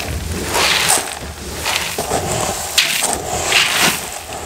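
Dry goat treats being stirred and scooped by hand in a feed bag: a run of rustling, crinkling swishes of grain against the bag.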